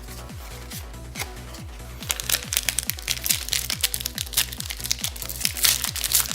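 Trading-card pack wrapper crinkling and crackling as it is torn open by hand, starting about two seconds in and growing denser, over background music with a steady beat.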